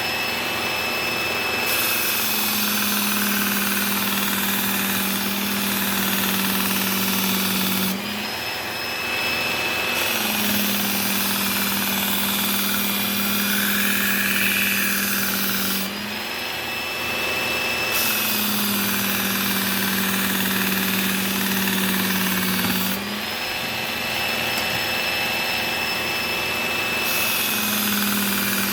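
Work Sharp Ken Onion Edition electric belt sharpener running steadily with a whine, as a knife blade is drawn across the moving belt in four grinding passes of about five to six seconds each, with short pauses between.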